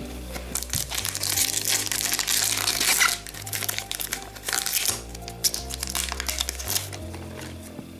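Foil trading-card pack wrapper crinkling and tearing as it is ripped open by hand, loudest over the first five seconds, over background music with a steady bass line.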